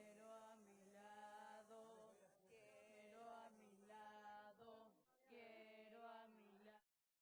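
A voice singing long held notes in a chant-like line, in phrases of a second or two, over a steady low tone. It cuts off suddenly near the end.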